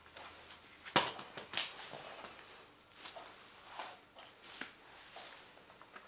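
Halves of a Kinesis Freestyle 2 plastic split keyboard handled and set down on a wooden floor: a sharp knock about a second in, then lighter clacks and rustles.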